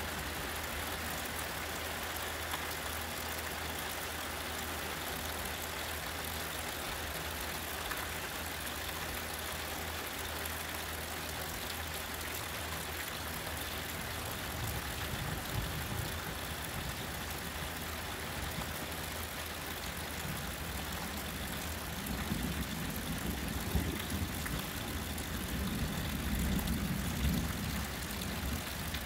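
Thunderstorm at night: steady rain noise, with distant thunder rolling low, once about fifteen seconds in and again, louder and longer, from about twenty-two seconds almost to the end.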